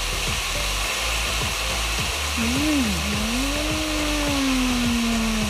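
Chicken and onions sizzling steadily in a hot wok over a portable gas burner. From about halfway in, a voice hums one long note that rises, then slowly sinks.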